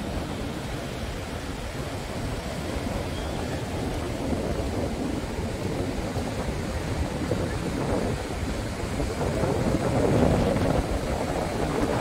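Wind buffeting the microphone over the wash of surf, a steady low rumble and hiss that swells a little louder about eight seconds in.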